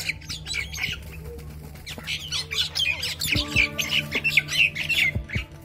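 Ducks giving a rapid run of short, high-pitched squawks, thickest in the second half, over background music with steady held notes.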